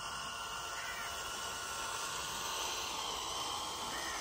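Radio-controlled model Massey Ferguson 385 tractor driving with its small drive motor running and its rear blade scraping through loose sand, a steady hiss.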